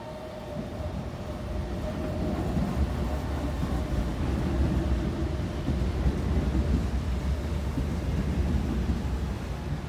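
Trenitalia Jazz (Alstom Coradia Meridian) electric multiple unit running past close by, a deep rumble of wheels and running gear that grows over the first few seconds and then holds steady. A faint whine fades out in the first couple of seconds.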